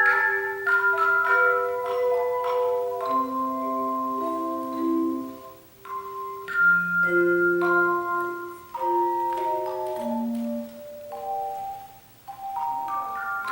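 Tone chimes played as an ensemble: a slow melody of struck chime notes, each ringing on as a pure sustained tone and overlapping the next. The playing pauses briefly about six seconds in and again near the end.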